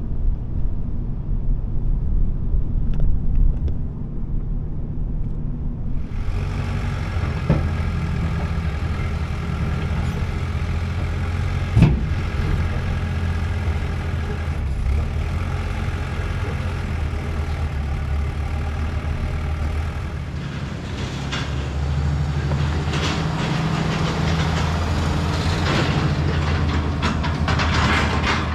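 Low rumble of a vehicle on the road. From about six seconds in, a heavy diesel engine runs steadily, with a few sharp metallic knocks and later a rattling clatter.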